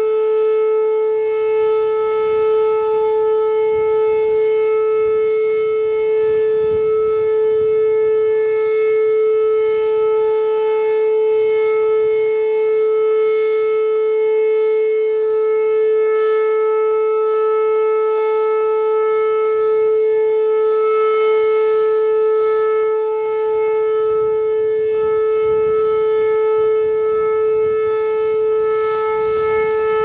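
Whelen WPS-2808 electronic outdoor warning siren sounding its steady Alert tone at about 435 Hz. The single held pitch neither rises nor falls, and it is the siren's weekly test signal.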